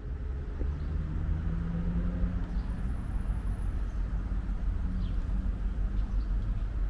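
City street ambience dominated by car traffic: a steady low rumble of passing vehicles.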